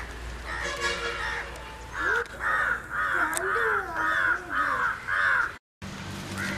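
A bird giving a fast run of about seven loud, harsh calls, starting about two seconds in; the sound breaks off briefly at a cut near the end.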